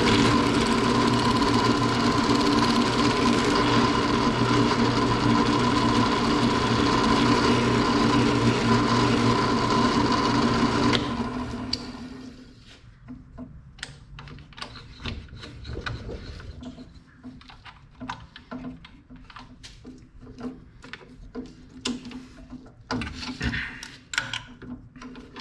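Drill press running steadily with a steady hum, spinning a piece of plastic that is being rounded down into a tapered bushing. About eleven seconds in it is switched off and dies away, and light clicks and knocks of handling follow.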